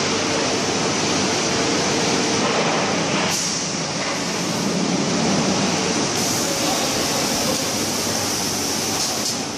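Steel drum production line machinery running: a steady mechanical din, with a short rush of noise about three seconds in.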